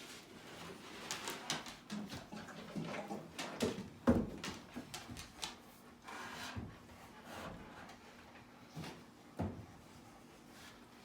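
Irregular knocks, clunks and scrapes of a water cooler being set up on a new wooden table, the loudest knock about four seconds in. A faint steady hum sits underneath in the second half.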